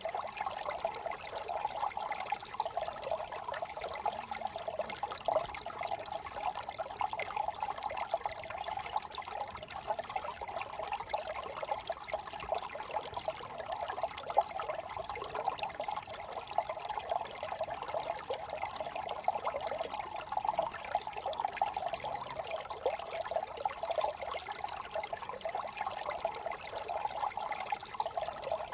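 A small brook trickling and babbling steadily over stones.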